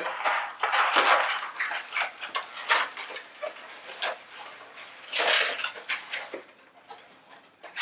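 Inflated latex round balloons, a white and a black one, twisted and rubbed against each other as they are locked together, squeaking and scraping in several spells. The loudest spells come about a second in and again a little past the middle.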